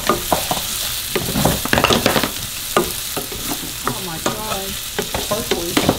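Diced onions sizzling in butter in a metal frying pan, stirred with a wooden spatula that scrapes and taps against the pan in short clicks over a steady hiss.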